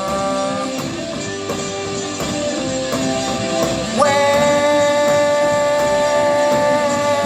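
Live rock band playing: electric guitar and band with singing. A long held note comes in about four seconds in.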